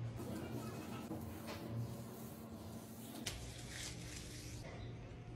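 Faint soft squishing and rubbing of hair cream being worked through wet hair by hand, with a single sharp click a little over three seconds in.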